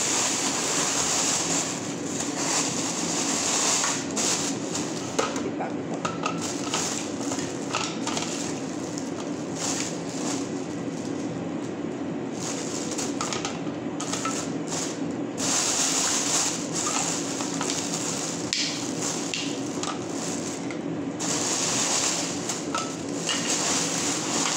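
Thin plastic bags rustling and crinkling as food is packed into them by hand, with small knocks, over a steady low hum.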